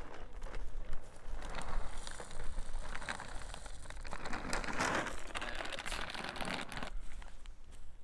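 Dry dog kibble being poured out of a large sack onto grass and dry ground: a rushing patter of pellets with crinkling of the sack, heaviest about five seconds in and dying away about a second before the end.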